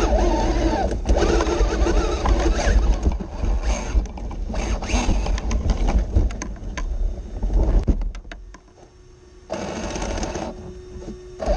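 Axial SCX6 RC rock crawler's electric motor and geared drivetrain whining and grinding as it crawls over rock, heard from a camera mounted on the truck, with the pitch rising and falling with the throttle. The drive drops off briefly about eight seconds in, then picks up again.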